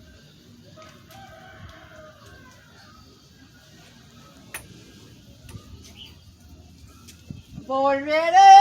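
A man belting out the long opening note of a song, loud, rising in pitch and then held, near the end, after several seconds of faint background.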